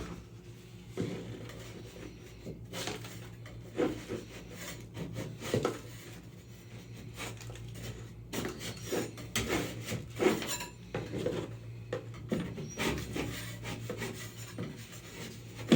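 Utility knife blade cutting out and scraping loose drywall tape and paint from a ceiling: irregular rasping strokes, with a steady low hum underneath.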